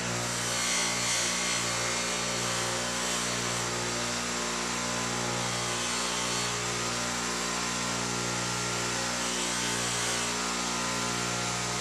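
Bench-mounted Scotch-Brite wheel running at speed, a steady motor hum under an even hiss, as the freshly cut end of a solid rivet is dressed straight and smooth against it.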